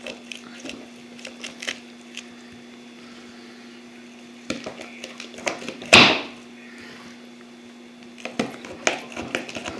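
Pocketknife blade cutting through hard corn cobs: scattered cracks and knocks, with one much louder knock about six seconds in and a quick run of clicks near the end.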